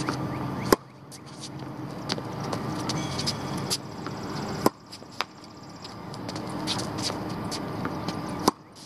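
Tennis racket striking the ball on serves: three sharp hits about four seconds apart, with a fainter knock shortly after the second, over a steady background hum.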